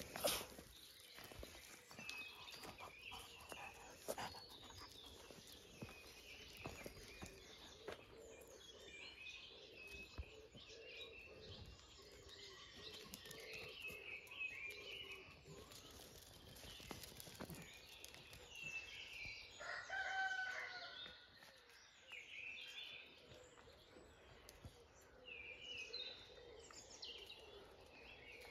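Birds singing, with footsteps crunching on a gravel track in the first seconds. About twenty seconds in, one louder drawn-out animal call lasts about a second and a half.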